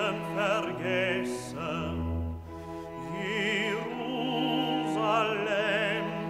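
Background classical music: an operatic voice singing with wide vibrato over sustained orchestral accompaniment.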